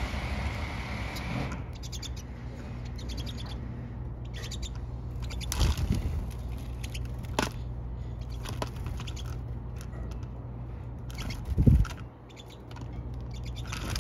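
Pine siskins twittering, clusters of rapid high chirps repeated again and again, over a steady low rumble. Two brief low thumps, one about halfway through and a louder one near the end.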